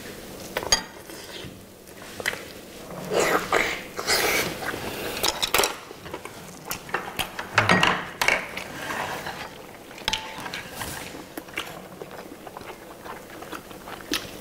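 Close-up eating sounds: biting and chewing glazed roasted chicken legs, with irregular clicks and clinks of bowls, plates and chopsticks and a sharp click under a second in.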